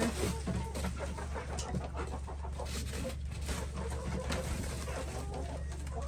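Chickens clucking intermittently over a steady low hum, with scattered small clicks and rustles.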